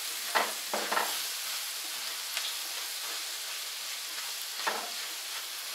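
Chopped onions sizzling steadily in oil in a frying pan, softening over a turned-down flame. A spatula scrapes through them a few times in the first second and once more near the end.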